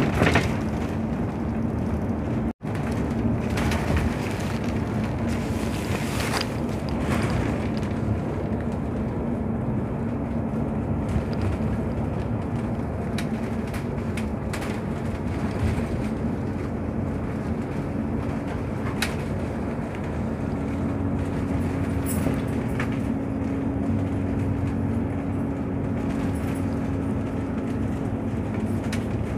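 Cabin noise of a bus at speed on an expressway: a steady low engine hum and road noise, with occasional light rattles. The sound cuts out for an instant about two and a half seconds in.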